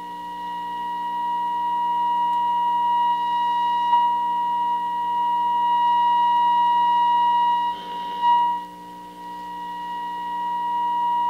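Vintage tube radio's speaker playing a steady test tone, a single pitch with overtones, picked up from the signal generator's modulated signal. It grows louder as the oscillator trimmer is peaked for maximum signal, swells and then drops away a little past halfway, then climbs back.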